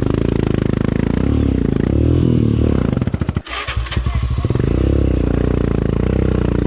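Motorcycle engine revving hard, its pitch rising and falling, with a brief drop about three and a half seconds in before it picks up again.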